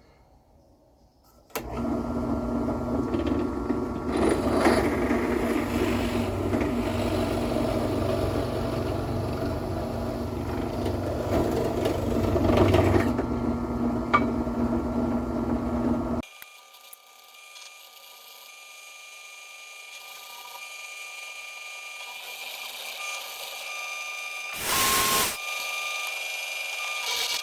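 Motor-driven workshop machinery running: one machine runs steadily with a hum and noise and stops abruptly about 16 s in, then another with a steady high whine slowly grows louder, with a short loud burst near the end.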